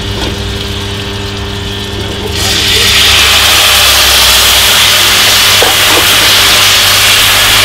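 Hot pan of melted brown sugar and butter over charcoal, with a low steady hum, then, about two and a half seconds in, a sudden loud steady hiss as soy sauce and orange juice are poured in to deglaze it and flash into steam.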